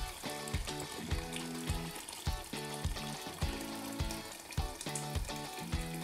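Water poured from an electric kettle into a stainless pressure cooker of beef cooking in oil, under background music with a steady beat about twice a second.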